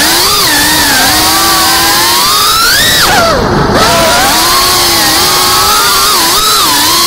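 Brushless motors and propellers of a Geprc Cinelog 35 FPV cinewhoop buzzing, the pitch rising and falling with the throttle. It climbs to a high whine about three seconds in, drops sharply as the throttle is cut, then wavers up and down again.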